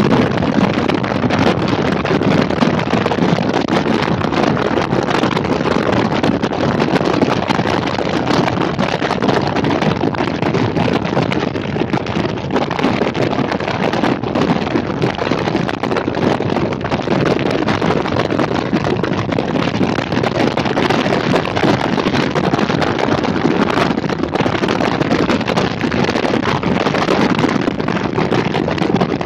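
Steady wind rush over the microphone of a camera riding on a moving motorcycle, mixed with the motorcycle's engine and road noise.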